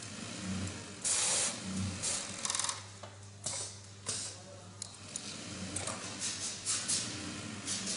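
Workshop sounds at a heavy-duty mattress flanging machine: a steady low hum with repeated short bursts of hiss and rustle, several in a row, as thick quilted mattress panel fabric is worked through it.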